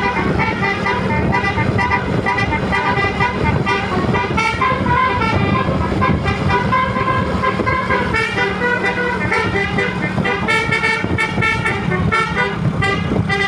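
Bus telolet horns of the Basuri type playing a quick tune, one note stepping to the next every fraction of a second, over a steady low hum.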